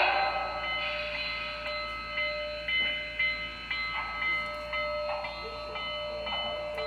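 Digital sound decoder in a brass model 4-6-6-4 Challenger steam locomotive playing steam sounds through its small speaker: soft exhaust chuffs at irregular intervals of about half a second to a second over a steady hum of several high tones.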